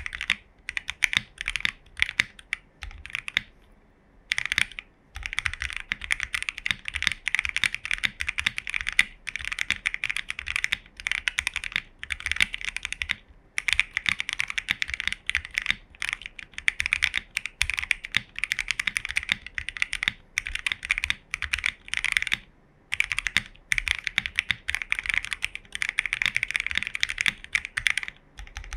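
Continuous typing on a Fuji 75 mechanical keyboard with lubed, filmed Gateron Ink Box Black linear switches on a polycarbonate plate, under CRP Greek keycaps: a dense run of keystrokes, broken by short pauses about four, thirteen and twenty-two seconds in.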